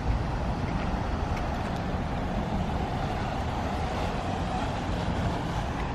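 Steady outdoor background noise, a low rumble with hiss and no distinct events.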